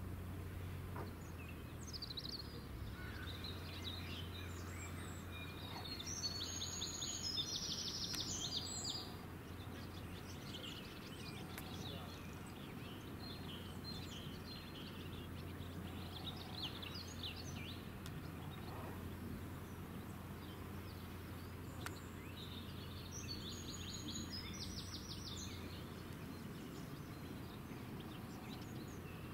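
Outdoor ambience of songbirds chirping, with a loud, rapid trilling song about six seconds in and another about twenty-four seconds in, over a steady low hum.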